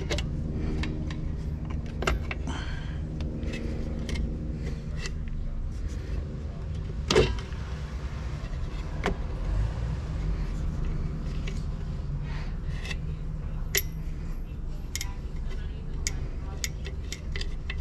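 Metal clicks and clinks of brake shoes and return springs being worked by hand onto a 1963 VW Beetle's front drum brake backing plate, with one louder clack about seven seconds in. A steady low hum runs underneath.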